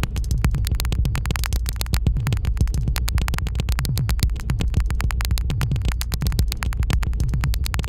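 Electronic synthesizer sound generated by the Moebius Lab app: a dense patter of glitchy clicks over a steady low bass drone, with a low bass figure recurring about once a second.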